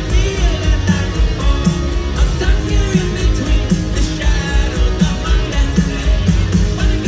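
Live rock band playing, with electric guitars, a steady drum beat and sung vocals, heard loud from the crowd in a large concert venue.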